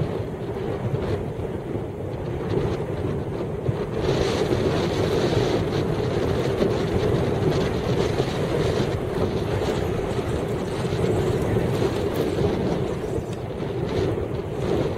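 Heavy wind buffeting the microphone: a steady rushing noise that grows louder about four seconds in.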